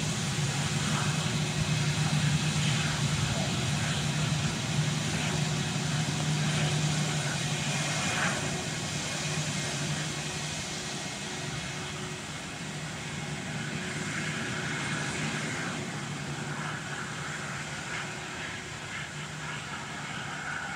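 Airbus A320-232's IAE V2500 turbofan engines at taxi power: a steady low hum over a broad rush, easing off a little about halfway through as the airliner taxis away.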